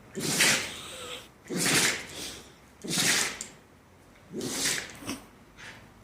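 A pet having a sneezing fit: four sneezes about a second and a half apart, then two lighter snorts near the end.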